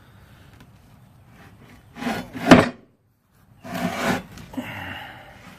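Short rough scraping and rubbing noises, as of a heavy metal piece being shifted and handled on a work surface, with one sharp knock about two and a half seconds in; the sound breaks off to silence for a moment and returns as a second, weaker scrape.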